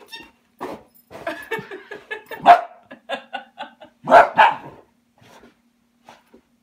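Welsh Terrier barking in play: a run of short barks, the loudest one about two and a half seconds in and a close pair about four seconds in, then it falls quiet.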